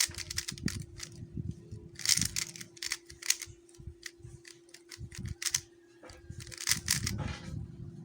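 Plastic clicking of a QiYi MS 3x3 speed cube being turned fast, in bursts of rapid turns with short pauses between, over a steady low hum.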